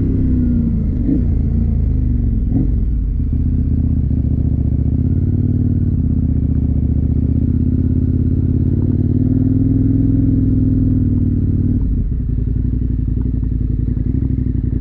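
KTM motorcycle engine running under way, its note rising and falling over the first few seconds, then holding steady, with a brief dip about twelve seconds in.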